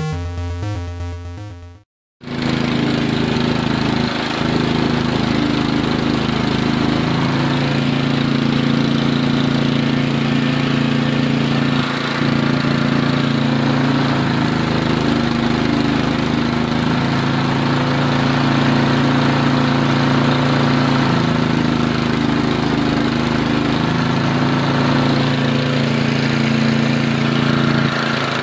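8 HP Tecumseh single-cylinder engine running steadily as it drives car alternators powering a homemade stick welder, its pitch dipping and recovering every few seconds, with the crackle of the welding arc.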